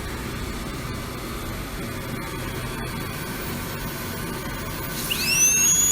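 Steady rushing hiss of dental spray and suction. About five seconds in, a high-speed dental drill spins up with a quickly rising whine that settles into a steady high-pitched tone.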